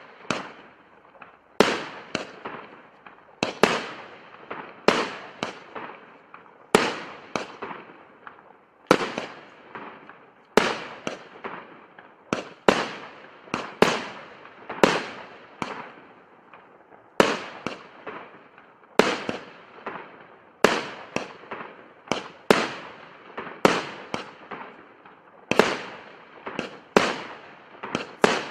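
A 25-shot firework cake firing its shots one after another: a sharp bang about every second, sometimes two close together, each dying away quickly.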